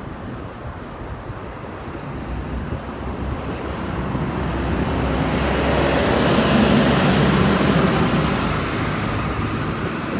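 Double-decker city bus pulling in to the stop: engine hum and rushing road noise grow louder to a peak about six to eight seconds in, then ease off.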